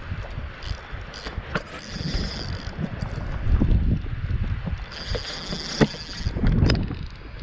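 Spinning reel being cranked to retrieve a feeder rig, with small clicks from the reel and wind buffeting the microphone. Two brief higher rasping sounds come about two and five seconds in.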